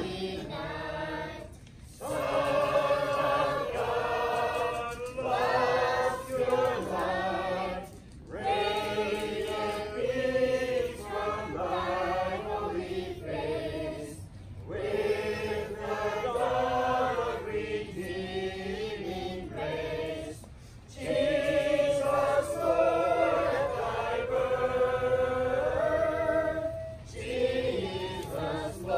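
A group of carolers, men's and women's voices together, singing a song in phrases broken by short pauses about every six seconds.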